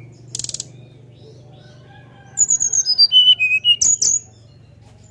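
Brown-chested jungle flycatcher singing: a short harsh rattle, then about two seconds in a loud, clear flute-like whistled phrase whose notes step down in pitch and end on a couple of high upswept notes.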